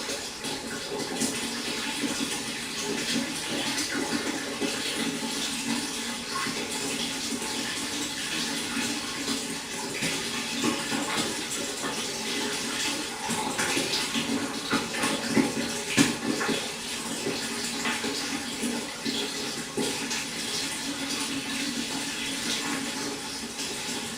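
Pond water trickling and splashing steadily, with many small splashes and one louder splash about two-thirds of the way through.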